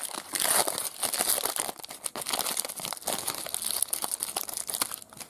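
Foil trading-card pack wrapper crinkling and tearing as it is ripped open and the cards are pulled out, a dense crackle of small clicks throughout.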